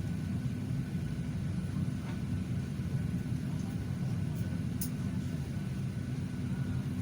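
Airplane noise: a steady low drone with a faint thin whine above it.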